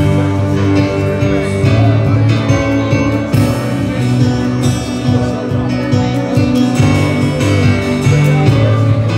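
Live worship band music: keyboard and strummed guitar holding a slow, sustained passage, with some singing.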